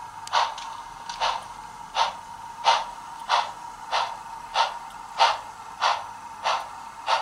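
Bachmann 2-8-0 model steam locomotive's onboard sound system playing steam chuffs through its small speaker as the model runs slowly: even, breathy chuffs about one and a half a second, over a steady high-pitched whine.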